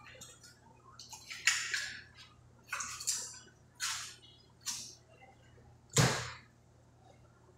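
Butcher's knife cutting through beef on a hanging piece of carcass: a series of short swishing, tearing strokes about a second apart, then a heavier thud about six seconds in.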